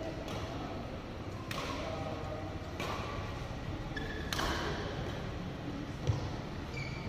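Badminton hall sounds: sharp racket-on-shuttlecock smacks about every second and a half, echoing in the large hall, with a few short squeaks and a low thud about six seconds in.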